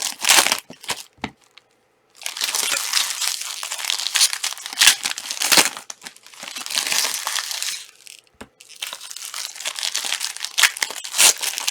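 Panini Prizm trading-card pack wrappers being torn open and crinkled, in bursts of rustling with short pauses near two seconds in and about eight seconds in.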